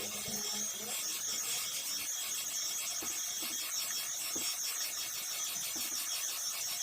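Steady whirring hiss of a small motorized tool used in phone repair, running evenly with a few faint ticks.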